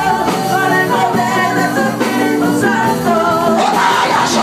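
Upbeat worship music with singing and instruments, playing steadily.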